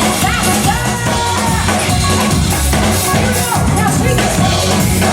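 Music with a steady drum beat and a melody line over it.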